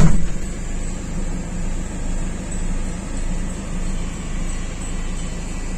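Steady low rumble of a moving vehicle, with one loud thump right at the start.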